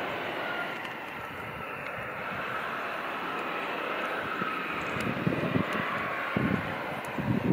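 Bombardier CRJ900's two rear-mounted General Electric CF34 turbofans running as the jet rolls out along the runway after landing: a steady jet rush with a faint whine. Low gusty rumbles on the microphone come in over the last couple of seconds.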